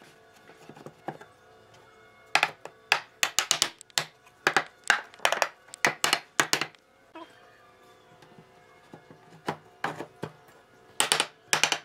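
Wooden mallet knocking slotted wooden boards together at their cross-lap joints: a quick run of sharp wooden knocks for a few seconds, then a few more near the end, over faint background music.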